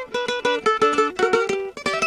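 Cavaquinho playing an instrumental passage of quick plucked notes.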